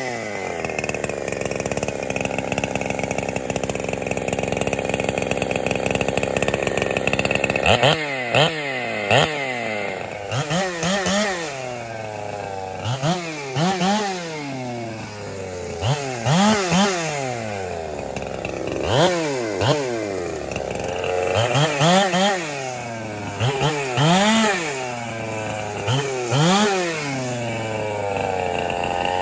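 Ported Holtzfforma 372 two-stroke chainsaw, a Husqvarna 372 clone, running steadily for about eight seconds, then revved up and down over and over. The ported engine is still being broken in.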